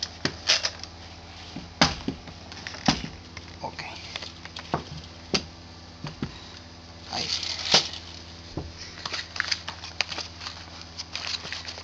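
Scattered metallic clicks and knocks from a full-metal Cyma AK-47S airsoft replica being handled: its underfolding stock is swung and the gun is laid on a table. A steady low hum runs underneath.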